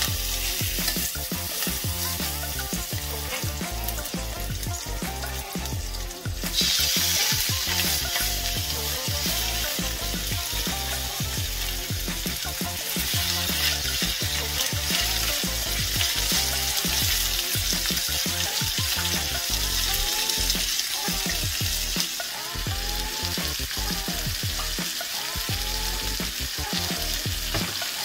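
Raw chicken breasts sizzling as they are laid into hot olive oil in a skillet, a steady crackling fry. The sizzle gets louder about six seconds in and again around thirteen seconds, as more breasts go into the pan.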